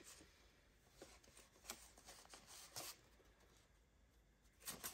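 Faint rustling and crinkling of paper bills being handled, a few sharp crinkles scattered through, with a small cluster near the end.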